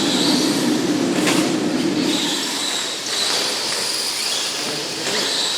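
Several electric SC10 1/10-scale RC short-course trucks racing round the track, their motors whining at wavering high pitches over a steady noisy hiss. A low hum fades out a little over two seconds in, and there is one sharp knock just over a second in.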